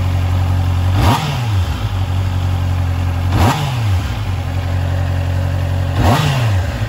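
Honda CBR650R's inline-four engine on its stock exhaust idling warm, blipped three times: each rev jumps up sharply and drops back to idle within about half a second, roughly two and a half seconds apart.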